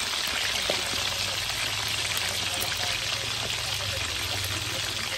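Pork belly pieces frying in hot oil in a wok: a steady sizzling hiss.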